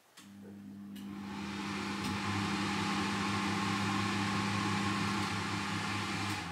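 Two Cleva Vacmaster air mover fans in a shop-made workshop air filter box, switched on and building over about two seconds to a steady rush of air with a low electric hum. The sound cuts off suddenly near the end.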